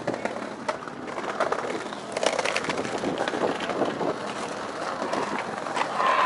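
Birds calling over outdoor background noise, with scattered short clicks.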